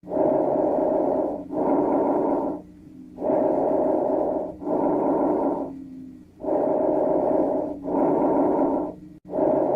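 Recorded lung breath sounds, as heard through a stethoscope: three full breathing cycles, each a breath in and a breath out of about a second apiece, split by a short break, with a longer pause before the next breath.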